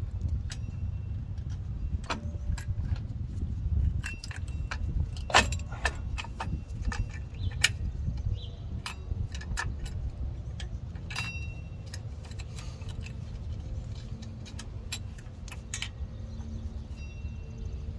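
Scattered metallic clicks and clinks of drum brake hardware being handled and fitted on a 1995 Ford F150's rear drum brake: return springs, brake shoes and adjuster parts tapping against the backing plate. A steady low rumble runs underneath.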